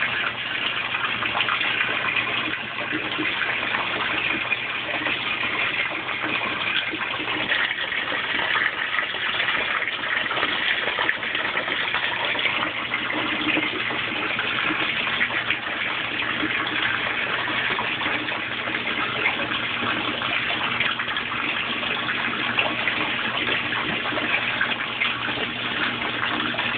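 Kenmore Oasis top-load washing machine filling during its C1 self-test stage: a steady rush of water pouring into the tub through the detergent dispenser, over a constant low hum from the machine.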